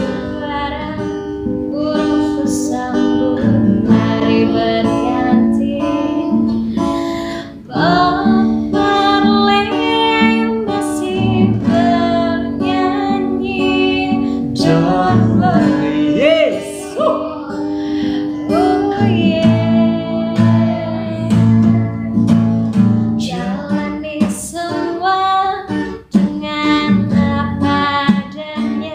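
A woman and a man singing a reggae-style duet to a strummed acoustic guitar.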